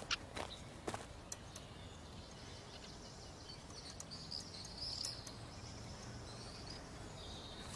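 Quiet outdoor background with birds chirping now and then, strongest about four to five seconds in, and a few light ticks in the first second or so.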